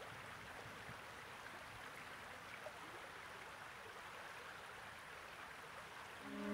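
Faint, steady rush of flowing river water. Near the end a cello note comes in and swells.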